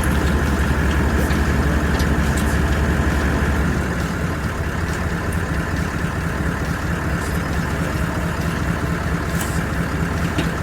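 An engine idling steadily, easing slightly lower about four seconds in.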